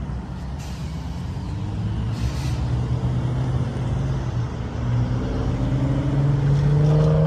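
GO Transit MP40PH-3C diesel locomotive's engine running as the train pulls slowly ahead. It gets louder, and its pitch rises near the end.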